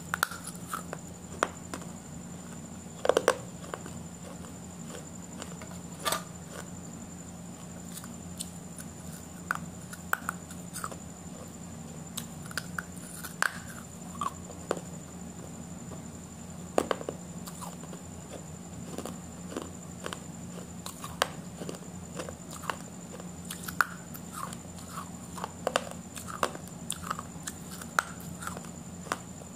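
A person chewing and biting into a burger and fries close to the microphone: irregular soft crunches and mouth clicks every second or so, over a steady low hum.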